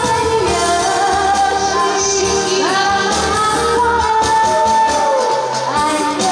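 A woman singing a pop song into a microphone over amplified backing music, with long held notes and sliding pitch.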